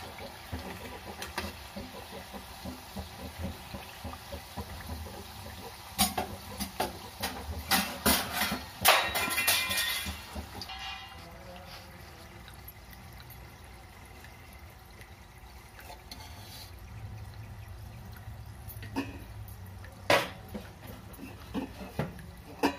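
Corn-flour tortilla chips deep-frying in hot oil, a steady sizzle and bubbling. A slotted metal spoon knocks and scrapes against the pan as the chips are stirred and turned, busiest from about 6 to 10 seconds in, with a few single knocks near the end.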